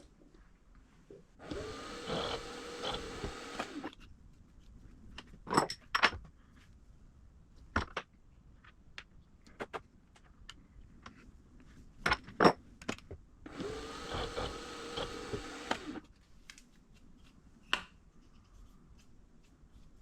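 A small power tool's motor runs in two short bursts of about two and a half seconds each, its whine dropping in pitch as it winds down at the end of each burst. Sharp metallic clicks and knocks come in between.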